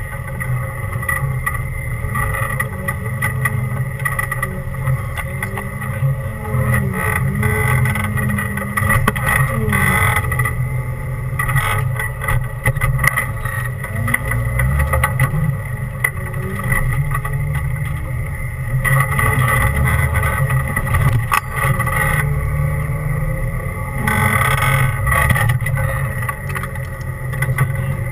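Off-road 4x4's engine running at low revs as it crawls over rough trail, its note rising and falling with the throttle, heard from inside the open cab. Scattered knocks and rattles come from the vehicle working over the ground.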